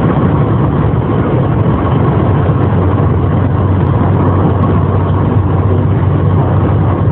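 Steady vehicle engine and road noise, a constant low rumble with no change in level.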